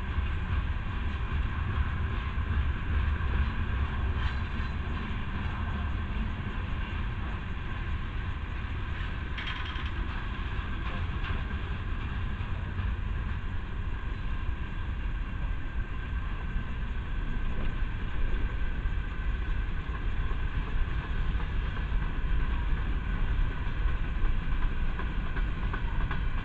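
Freight cars of a Norfolk Southern train rolling past: a steady rumble of steel wheels on rail, with a brief clank about nine seconds in.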